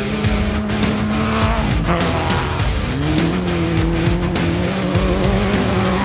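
Class 10 off-road race buggy's engine running as it drives along a dirt course, with background music playing over it.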